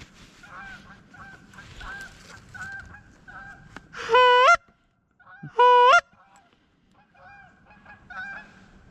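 A flock of Canada geese honking repeatedly at a distance, answered by two loud, close honks from a hunter's goose call, about four and five and a half seconds in.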